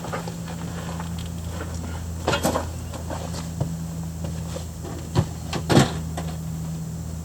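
A few scattered clunks and knocks from things being handled and set down, over a steady low hum.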